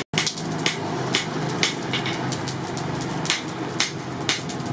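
Coal forge with its electric blower running, a steady rushing noise with a low hum under it. Sharp metallic clinks come about twice a second throughout.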